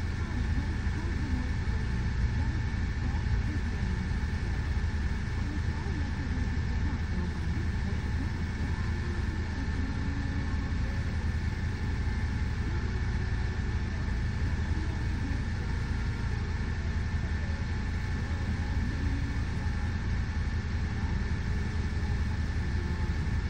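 2019 Blue Bird Vision school bus idling at a stop, a steady low rumble.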